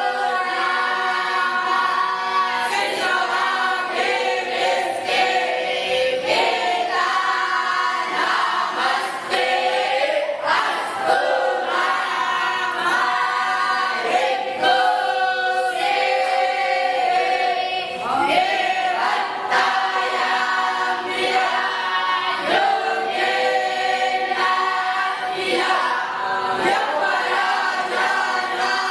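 Many voices singing a devotional chant together in unison, with long held notes and no break.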